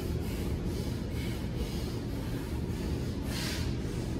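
Steady low machine hum from the room's ventilation, with one short rush of breath about three and a half seconds in as a burpee drops into the plank.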